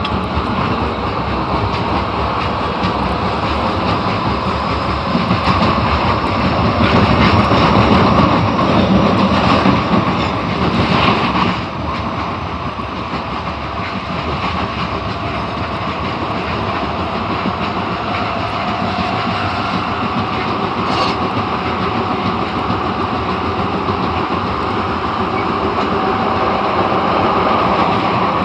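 Osaka Metro Tanimachi Line 22 series subway train running between stations: steady noise of wheels on rail, louder for a few seconds about a third of the way in, with a faint motor whine later on.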